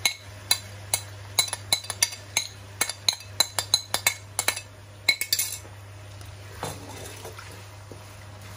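A metal spoon clinking and scraping against a plate and an aluminium karahi as chopped onion is scraped into the pan: a quick run of sharp clinks for about five seconds, then quieter.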